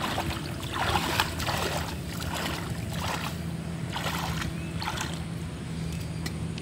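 Hands splashing and scooping through shallow muddy water, in a run of separate splashes about once a second.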